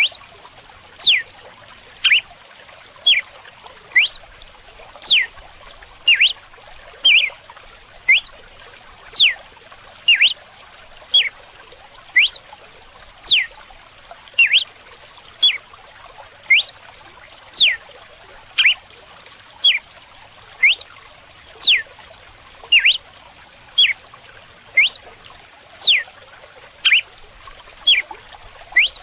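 Red-cowled cardinal (galo-de-campina) giving its whip-like 'açoite' song: short, sharp notes repeated about once a second, some sweeping steeply down and some rising. Under it runs a steady trickle of flowing water.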